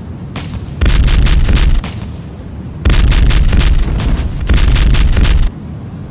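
Industrial noise music: blasts of harsh, distorted crackling noise over a heavy low rumble, cutting in and out abruptly about three times, with a quieter rumble between the blasts.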